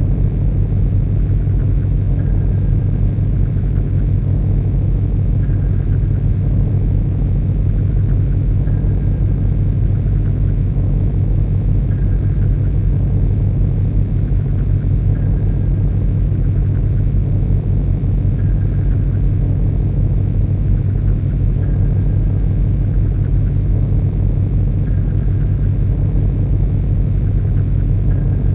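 Harsh noise: a dense, unbroken low rumble, with a faint high tone that returns about every three seconds.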